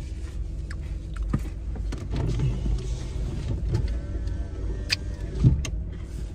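Handling noises of a person twisting round in a car seat toward the back seat: scattered clicks, knocks and rustling, a creak of about a second near the middle, and a thump about five and a half seconds in, over a low steady rumble.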